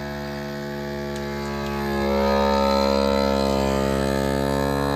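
Countertop vacuum sealer's pump running with a steady hum as it draws the air out of a bag of meat, growing louder about two seconds in.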